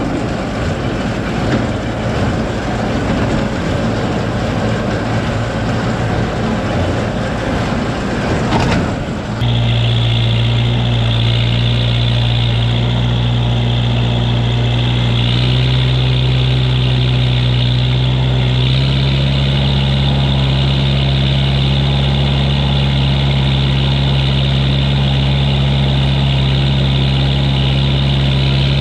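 Tractor pulling a hay baler in the field: for the first nine seconds a rough, noisy machinery clatter, then a sudden change to a steady engine drone whose pitch steps up slightly twice.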